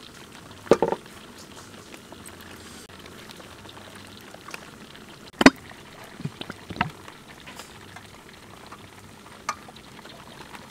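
Tomato sauce simmering in a wok on a portable gas stove: a faint, steady bubbling hiss, broken by a few sharp knocks and clicks, the loudest about five seconds in.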